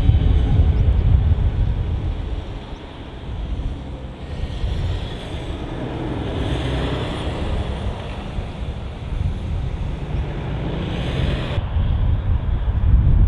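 Low rumble of a jet airliner's engines, with wind buffeting the microphone.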